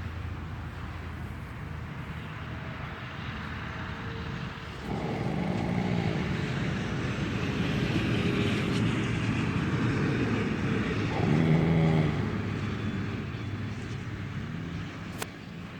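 An animal snoring, about three drawn-out, pitched snoring breaths a few seconds apart over a steady background hiss.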